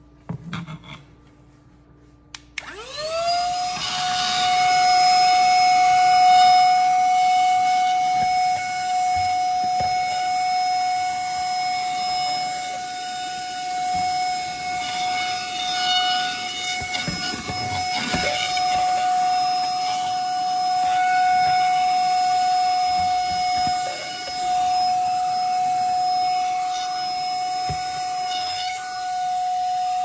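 Flla cordless mini handheld vacuum/air duster clicked on about two and a half seconds in, its motor spinning up fast to a steady high whine with hissing airflow. The level swells and dips as the nozzle is moved over the floor.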